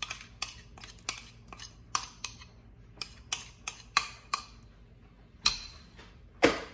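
Metal spoon scraping and tapping against a ceramic bowl, a quick run of clinks as a thick tomato purée mix is scraped out, followed by two louder knocks near the end.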